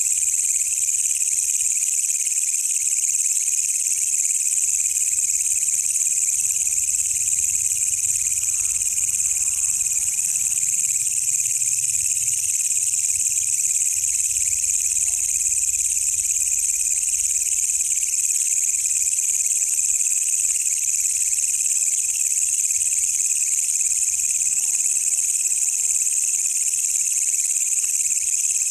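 Wild walang kecek katydid singing a continuous, steady high-pitched buzzing trill without a break.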